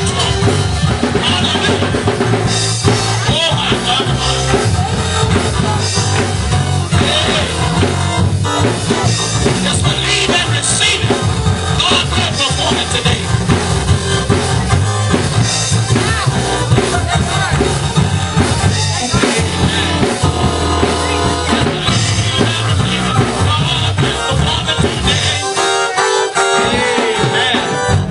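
Live gospel praise band playing an upbeat groove on drum kit and bass, with the low end dropping out briefly near the end.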